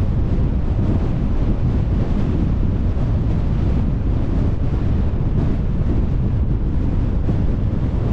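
Steady low rumble of wind buffeting the microphone on a moving car, mixed with road noise.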